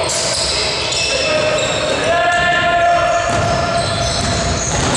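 Basketball dribbled on a sports-hall court amid the players' running footsteps, with players' voices over it. It rings with the echo of a large hall.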